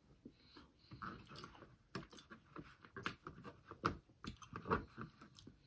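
Eating sounds: chewing cheesecake amid an irregular run of small clicks and taps from a fork and a plastic takeout container, starting about a second in.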